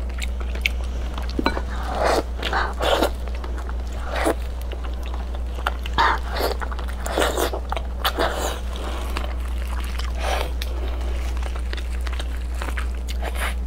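Close-miked chewing and biting of soft, fatty braised pork belly: irregular wet mouth sounds and smacks, thinning out near the end, over a steady low hum.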